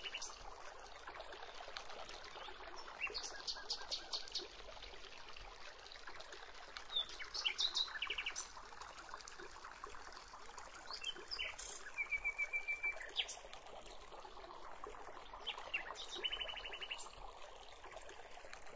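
Birds chirping, with short rapid trills repeated every few seconds over a steady background hiss.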